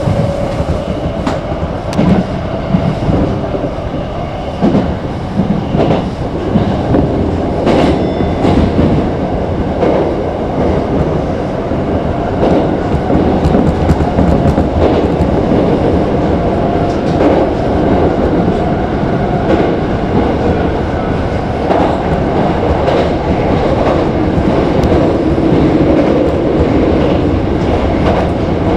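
Toyo Rapid 2000 series electric train running at speed, heard from inside the lead car: steady rolling noise and motor hum, with the wheels clicking over rail joints. Partway through it runs onto a steel truss bridge.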